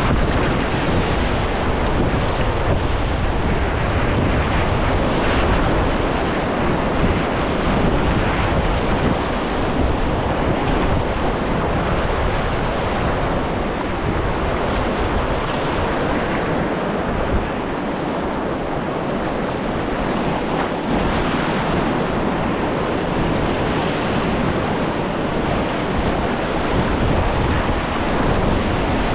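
Steady rush of whitewater rapids, with wind rumbling on the microphone.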